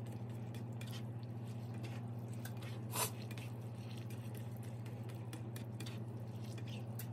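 Slotted spatula stirring ground chicken in sauce in a cast iron skillet: wet squishing with light scrapes and clicks against the pan, and one sharper clack about three seconds in. A steady low hum runs underneath.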